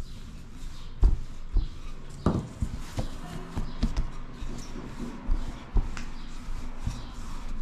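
Wooden rolling pin rolling out pizza dough on a floured table: irregular knocks and dull thumps as the pin presses, rolls and is lifted and set down. The sharpest knock is about a second in, and another comes just after two seconds.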